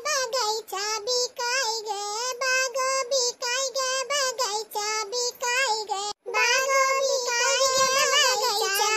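A high-pitched, artificially pitch-shifted cartoon voice talking or chanting rapidly in short syllables, with a brief break about six seconds in.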